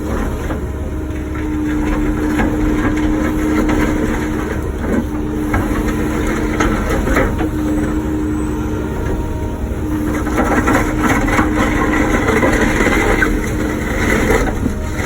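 Wacker Neuson ET145 excavator's diesel engine running under hydraulic load, with a steady hum that drops out and returns. Its bucket gives scattered knocks and scrapes as it breaks up blacktop, busiest near the end.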